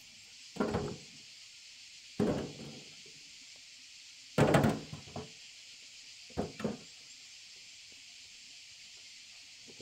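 Four dull knocks or thumps, one every second or two, the third the loudest and the last a quick double, over a steady high hiss.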